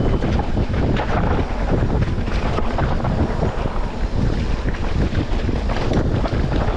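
Heavy wind buffeting on the microphone, with many scattered short rattles and knocks throughout.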